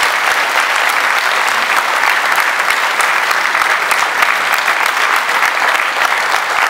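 Audience applauding steadily, a dense clapping of many hands.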